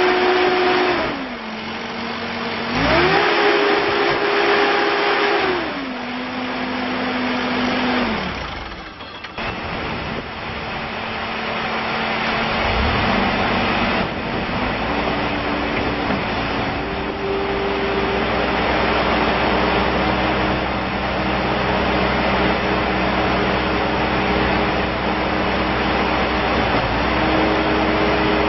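Perkins diesel engine of a 2013 Takeuchi TS60V skid steer loader revving up and back down twice, then running steadily at a higher speed, its pitch stepping up briefly a couple of times.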